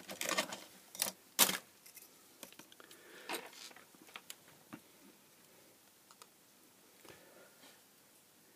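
Handling noise: a series of light clicks and knocks as the opened aluminium lamp housing and its cable are picked up and turned over on a workbench. The loudest knock comes about one and a half seconds in, and the handling grows quieter after about five seconds.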